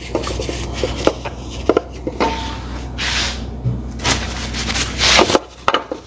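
Tissue paper rubbed and wiped around a glossy black plate, two louder swishes about three and five seconds in. Small knocks and clicks come from the plate being handled, over a steady low hum.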